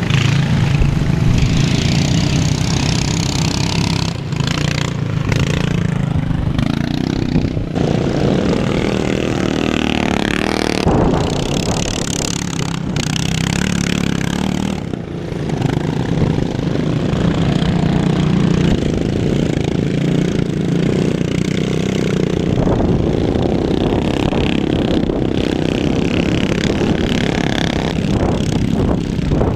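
Small petrol engines of ride-on racing lawn mowers running hard around a dirt track. The engine note rises and falls as the mowers rev and pass.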